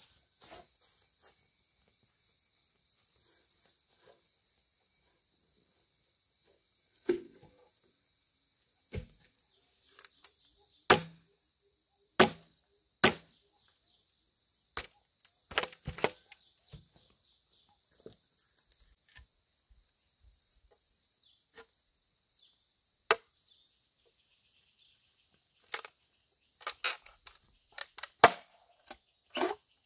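About a dozen sharp knocks or chops at irregular intervals, the loudest a few in a row near the middle, over a steady high chirring of insects.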